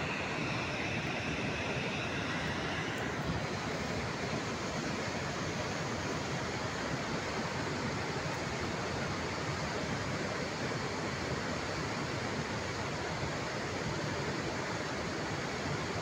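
Steady rushing of a muddy river in flood, a constant even wash of floodwater noise.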